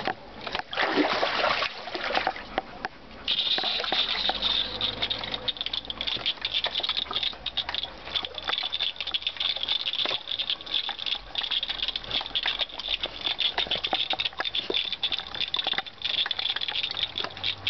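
A thin jet of water, as from a garden hose, hissing and pattering as it splatters on a dog's face and open mouth, with splashing in the pool water. The steady spray starts about three seconds in.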